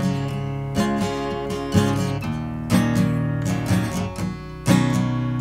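Acoustic guitar strumming chords, about one strum a second.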